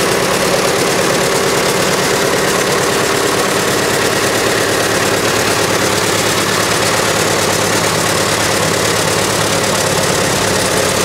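A 1967 Caterpillar 955K crawler loader's diesel engine idling steadily.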